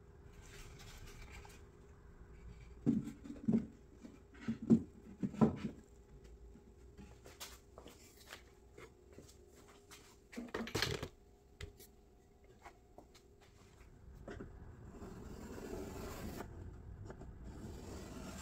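Wooden frame and plywood panels knocking as they are handled and set in place: a run of sharp knocks a few seconds in and one louder knock near the middle. Near the end, a pencil scratching on plywood.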